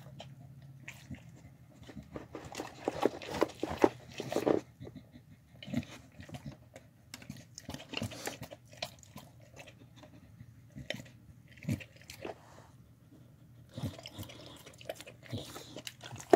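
A dog eating from a bowl: the irregular wet chewing, smacking and licking of the last scraps, busiest in a flurry a few seconds in.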